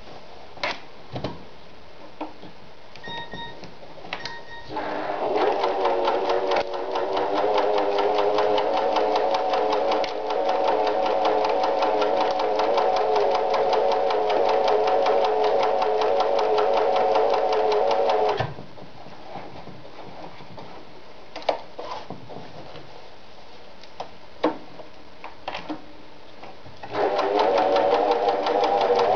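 Riccar 906E electronic sewing machine stitching cotton fabric. After two short beeps, the motor whines up to speed and runs steadily with a fast, even needle clatter for about fourteen seconds, then stops. A few sharp clicks follow, and the machine starts again near the end.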